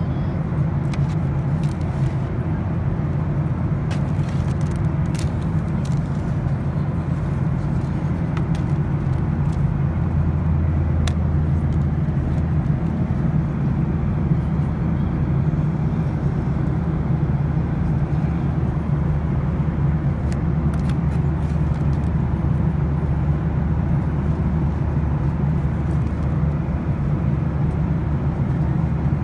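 Boeing 737-800 passenger cabin noise: the steady low drone of the engines and airflow, unchanging throughout. A few faint clicks and rustles come from the seat-back tray and the safety card being handled.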